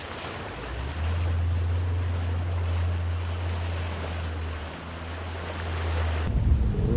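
Rushing, splashing floodwater heard from a boat moving across it, over a steady low rumble that cuts off abruptly near the end.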